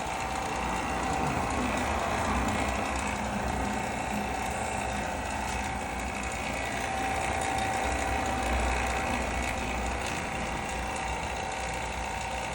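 Vacuum pump running steadily, a continuous mechanical whirr with a constant whine over it.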